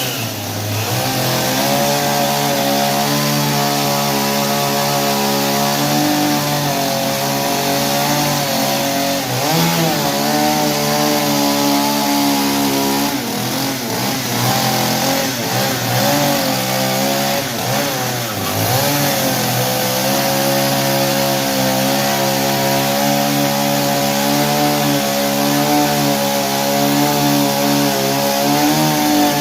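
Stihl chainsaw running continuously at a steady high speed. Its pitch dips and wavers several times in the middle, as the engine comes under load cutting wood.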